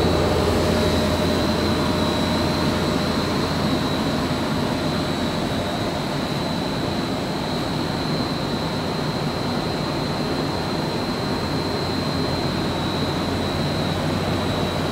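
Krantz industrial centrifuge running at spin speed: a steady whirring rush with a thin, constant high whine over it.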